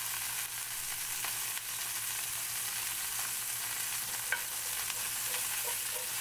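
A smash burger patty sizzling in a cast iron skillet, a steady frying hiss. About four seconds in there is a light tap as a slotted spatula and a spoon reach into the pan to slide under the patty.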